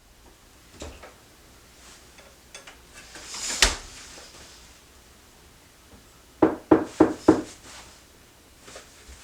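Household handling noises: a sharp clunk a few seconds in, then a quick run of four or five knocks about two seconds later.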